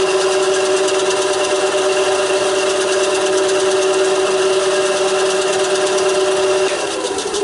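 WEN BA3959 9-inch benchtop band saw, with its 2.8-amp belt-driven motor, running free with no workpiece: a steady hum. Near the end it is switched off and the pitch falls as it winds down.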